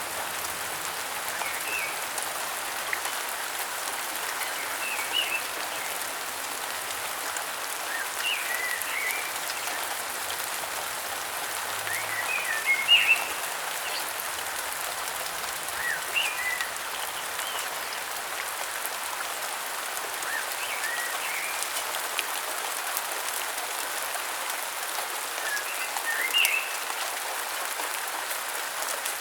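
Steady rain falling, with short bird chirps every few seconds; the loudest cluster of calls comes about 13 seconds in and another about 26 seconds in.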